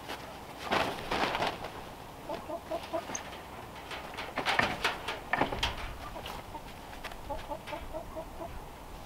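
A hen clucking in two quick runs of short low notes, about two seconds in and again about seven seconds in. Between them, louder crackling bursts as a plastic tarp is handled and pulled tight.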